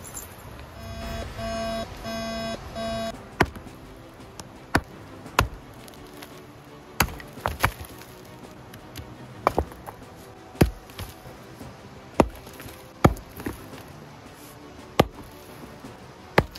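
Four short electronic beeps, then a wooden-handled pick striking rock about a dozen times at uneven gaps of about a second, each blow a sharp crack.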